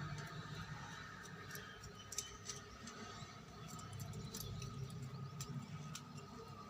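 Scattered light clicks and taps of small metal parts being handled and worked with hand tools while an electric iron's thermostat is being taken apart, the sharpest click about two seconds in, over a faint low hum.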